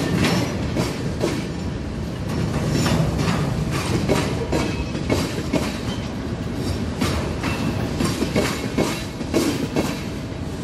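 Freight train rolling past, led by an EMD GP16 diesel locomotive and pulling hopper cars: a steady rumble with wheels clicking irregularly over rail joints.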